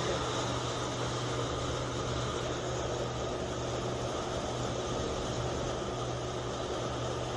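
Heavy rain pouring down steadily, an even hiss with a low hum under it.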